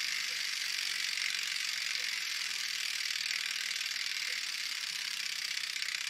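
Freehub of a Sun Ringle Super Boobie rear hub with a dual-pawl system, buzzing steadily as the rear wheel coasts freely: its pawls click too fast to tell apart, giving one continuous ratchet buzz.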